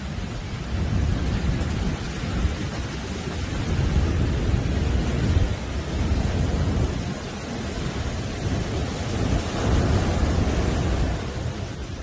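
Heavy surf: large waves breaking and foam washing up a sand beach, with a deep rumble that swells and eases every few seconds.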